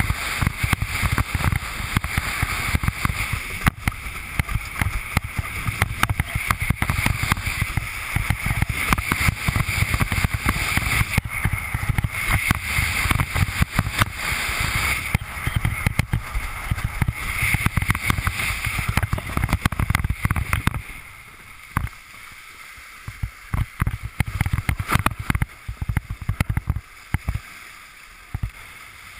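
Wind buffeting the action camera's microphone and water rushing and slapping against a Fanatic Falcon windsurf board planing over chop, with many small knocks from the hull hitting the waves. About three quarters of the way through, the rush drops noticeably and only occasional slaps remain.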